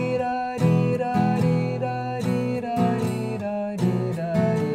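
Viola caipira, the Brazilian ten-string guitar, playing the introduction of a cururu: rhythmic plucked and strummed chords with a melody line picked over them.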